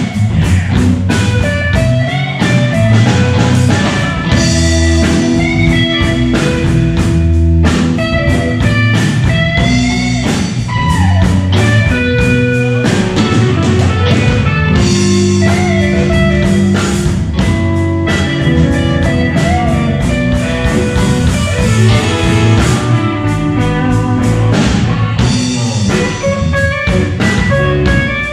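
Live blues band playing an instrumental passage: electric lead guitar with bent notes over rhythm guitar, electric bass and drum kit.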